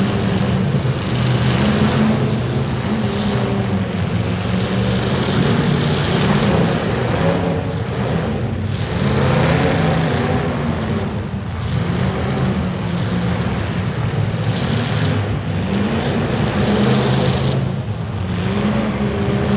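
Demolition derby car engines revving hard, their pitch rising and falling over and over.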